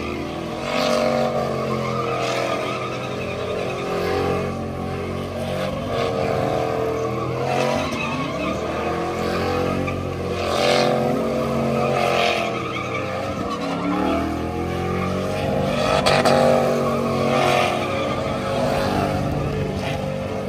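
Truck engine revving hard over and over while driving through a mud pit, its pitch swinging up and down every second or two.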